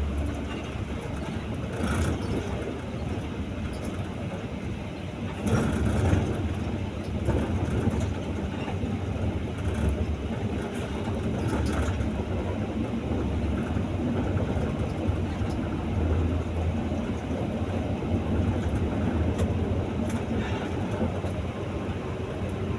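Steady engine drone and road noise inside a moving bus cabin, with occasional rattles and knocks.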